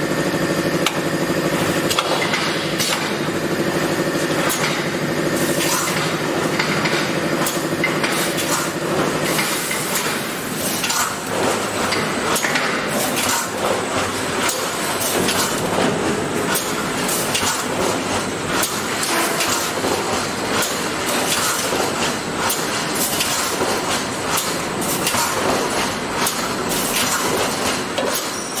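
Welded-wire panel fence spot-welding machine running: a steady hum for about the first nine seconds, with repeated metallic clanking and clicking throughout as the machine cycles.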